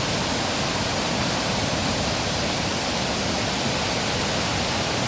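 Steady rushing of a small creek in flood after a heavy storm, fast brown water carrying branches downstream.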